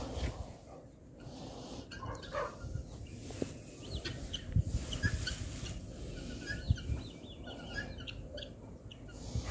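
Farmyard poultry calling, with scattered short chirps over a low background rumble.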